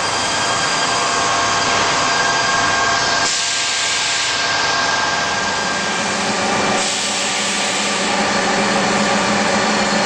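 2005 NTC ZV5000 4-axis vertical machining center running a cut under coolant spray: a steady loud hiss with several steady machine tones on top. The sound changes abruptly about three seconds in and again near seven seconds in.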